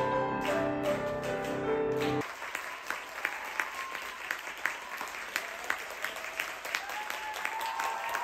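Solo grand piano playing a classical-style piece, which stops abruptly about two seconds in. Audience applause follows, with individual claps standing out.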